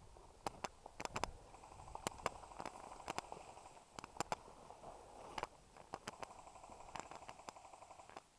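Footsteps crunching through dry leaf litter, with twigs snapping underfoot and brush rustling. The sharp cracks come at an irregular walking pace.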